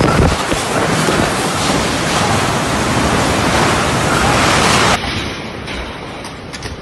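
Storm wind and heavy rain: a loud, even rush of noise that drops abruptly about five seconds in to a quieter rush of wind and rain with a few light taps.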